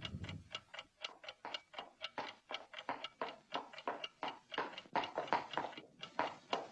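Steady clock ticking, about four ticks a second, from the film's soundtrack.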